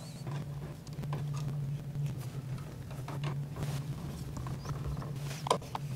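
Scattered light clicks and knocks as a duplex outlet, wires bunched behind it, is pressed into a blue plastic electrical box and a screwdriver turns its mounting screws, with a sharper knock near the end. A steady low hum runs underneath.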